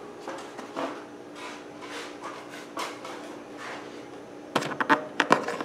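A faint steady hum with a few soft scattered clicks, then a quick run of louder sharp clicks and knocks near the end.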